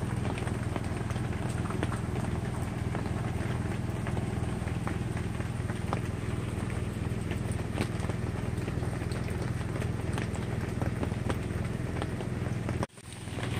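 Butane cartridge camp stove burning steadily under a lidded pot of water heating toward the boil, with faint scattered ticks. The sound cuts out for a moment near the end.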